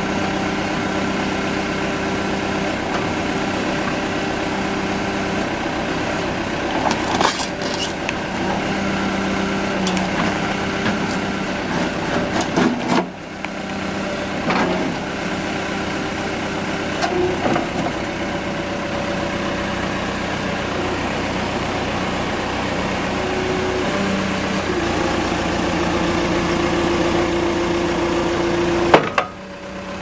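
1995 JCB 217 backhoe loader's diesel engine running steadily while the backhoe arm is worked, with a few metallic knocks. Near the end the engine note grows louder for a few seconds.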